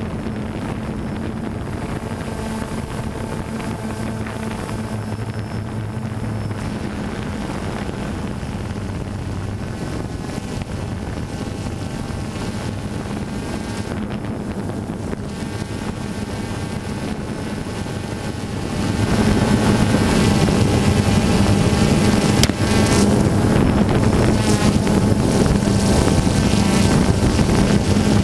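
Small multirotor drone's motors and propellers humming steadily with a fixed pitch, growing clearly louder about two-thirds of the way through.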